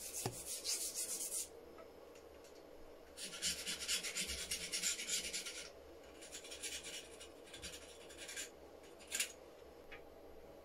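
A stiff brush scrubbing rust off steel rifle parts with rapid back-and-forth strokes, in several bursts with short pauses between them, the longest in the middle, then one brief stroke near the end.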